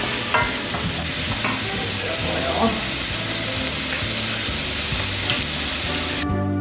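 Prawns sizzling steadily as they sauté in hot oil in a pan. Near the end the sizzle cuts off and brassy swing music comes in.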